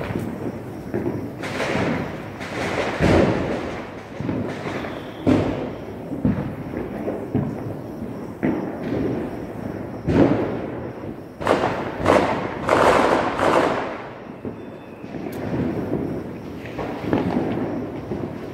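Firecrackers and fireworks going off over and over: irregular bangs and thuds of varying loudness with hissing and crackling between them, thickest and loudest between about ten and fourteen seconds in.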